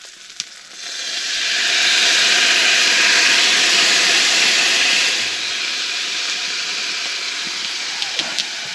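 Shallots and garlic sizzling in butter in a pan, a steady hiss that swells about a second in and eases a little after about five seconds.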